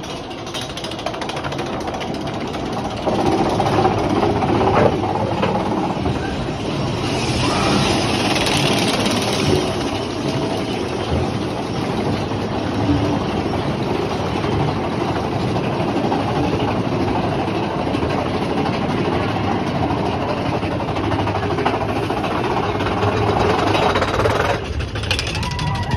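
Big Thunder Mountain Railroad mine-train roller coaster heard from on board: steel wheels rumbling and rattling on the track, with the clatter of the chain lift as the train climbs. Continuous and steady, louder from about three seconds in.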